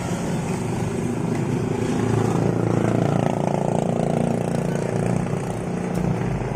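Konzert AV-502A amplifier playing its test audio through a speaker: a dense, continuous sound that grows louder about two seconds in and eases a little near the end.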